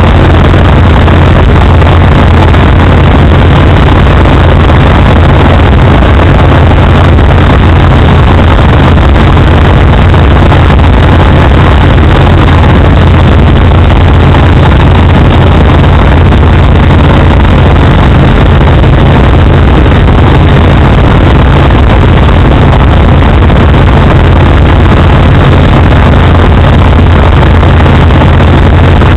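Ultralight aircraft engine and propeller running at a steady cruise setting, heard from inside the cockpit: a loud, unchanging drone.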